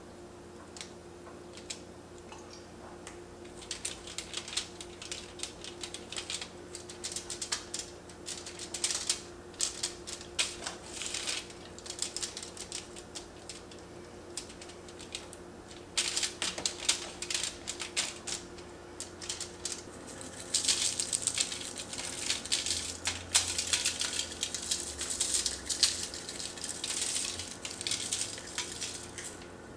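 Aluminium foil lining a sheet pan crinkling and crackling in irregular bursts as hands rub oil into raw chicken on it. From about two-thirds of the way in, denser and louder crackle as a shaker of lemon pepper seasoning is shaken over the chicken and foil, over a faint steady hum.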